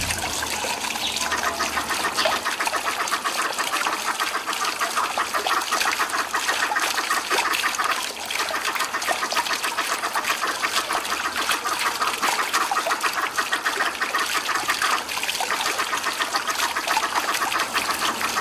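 Steady trickling water with dense, rapid chirping over it.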